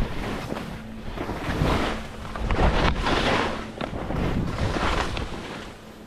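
Skis carving turns on snow, a hissing swell with each turn, about three in a row, over low wind rumble on the microphone.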